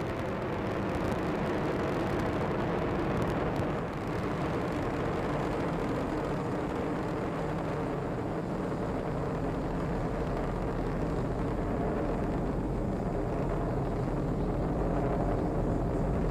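Falcon 9 first stage's nine Merlin 1D engines firing during ascent: a steady, dense rumble that dips briefly about four seconds in.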